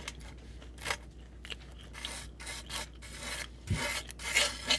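Metal fork scraping and cutting through a crunchy rehydrated hash brown patty on a metal toaster-oven pan: a string of short, scratchy scrapes, with one dull knock late on.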